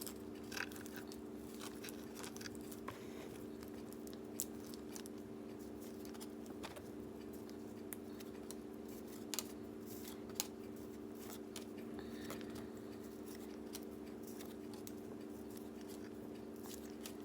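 Old cardboard trading cards being handled and flipped, giving scattered soft clicks and snaps, a few sharper than the rest, over a steady low hum.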